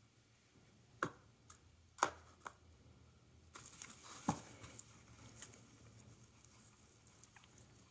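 A cat's paws and body knocking and scratching against a cardboard pizza box as she bats at a feather wand toy: several sharp knocks about one and two seconds in, then a scratchy rustle of cardboard with one more knock in the middle of it.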